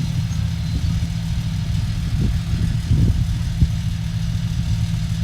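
Excavator's diesel engine running steadily with a low hum, with a few short knocks, the sharpest about three and a half seconds in.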